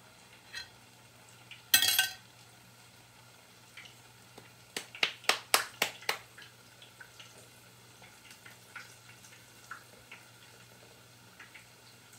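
A metal spoon scraping and clinking against a glass mixing bowl of mashed ripe plantain. There is one loud scrape about two seconds in, then a quick run of about six sharp clinks around five to six seconds in, then only faint, soft handling ticks.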